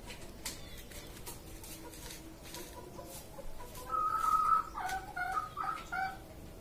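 A chicken calling about four seconds in: one held note, then a run of short, choppy notes.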